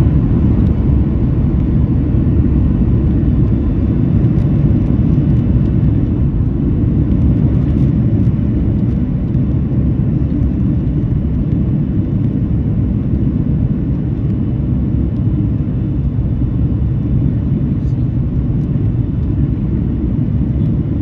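Steady low rumble of a Ryanair Boeing 737's engines and rushing air, heard from inside the passenger cabin on final approach to landing.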